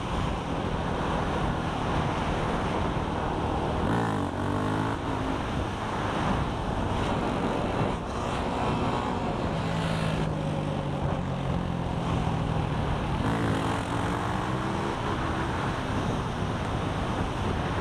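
Sport quad's engine running at speed on the road, its pitch rising and falling a few times as the rider works the throttle and gears, over heavy wind noise on the helmet-mounted microphone.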